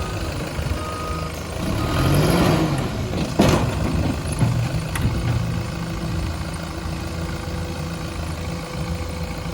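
Tata Hitachi Shinrai backhoe loader's diesel engine running, with its reversing alarm beeping for the first two seconds. The engine swells briefly around two seconds in, a sharp clank follows about a second later, and then it runs steadily.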